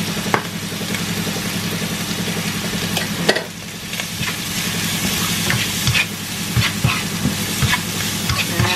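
Diced chicken, peas and scrambled egg sizzling in a nonstick wok while a wooden spatula stirs and scrapes through them, with a steady low hum underneath. The spatula knocks against the pan now and then, loudest about three seconds in, then taps more often after about five seconds.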